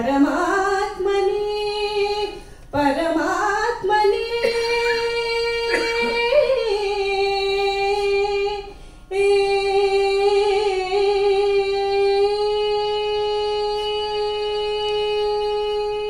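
A woman singing a Kannada mukthaka solo, with no accompaniment. She glides up into sustained notes and then holds one long, steady note from about nine seconds in.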